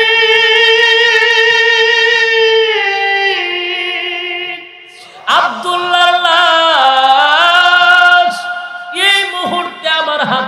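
A man's voice chanting unaccompanied in long, held, wavering notes, the sung lamenting delivery of a Bangla waz sermon. It comes in two long phrases, broken by a brief pause about halfway.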